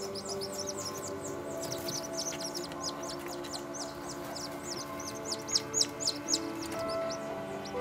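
Newly hatched chicks peeping, a rapid run of short high chirps several a second, growing louder a few seconds in.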